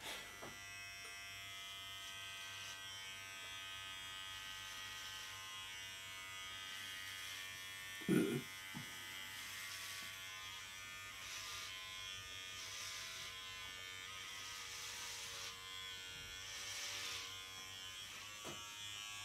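Corded electric hair clippers switched on and buzzing steadily while cutting short hair, with a rasp as the blades pass through it. A brief low thump sounds about eight seconds in.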